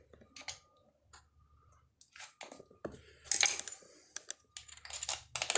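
Metal parts clinking and knocking as a misaligned cover is worked into line: scattered light clicks, a louder clatter a little past halfway, and more clatter near the end.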